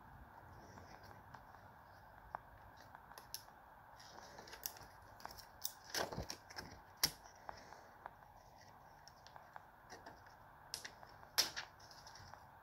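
Faint crinkling and scattered clicks of a thin plastic screen protector film and its plastic packaging being handled by hand, with a louder cluster about six seconds in and one sharp click near the end.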